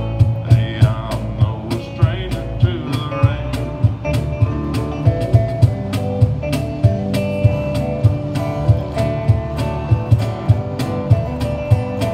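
A guitar and a cajon playing a country song live, the cajon slapped in a steady beat about twice a second under the guitar's notes.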